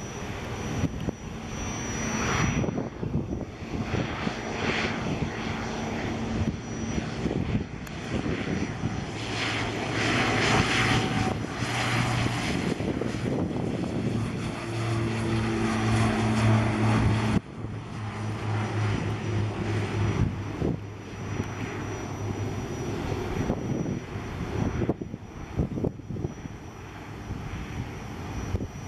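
Pilatus PC-12 single-engine turboprop on its takeoff run, lifting off and climbing away: propeller drone with a steady low hum, building to its loudest in the middle. About 17 seconds in it drops suddenly, then fades as the aircraft climbs out.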